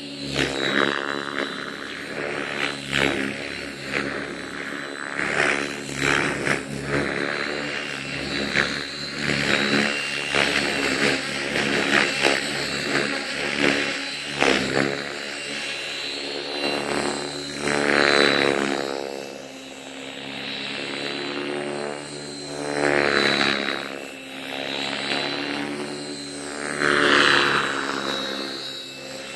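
Align T-Rex 550E electric RC helicopter in flight. Its main rotor blades whoosh in repeated loud surges over a pitched whine from the motor and drivetrain that shifts as the headspeed and load change.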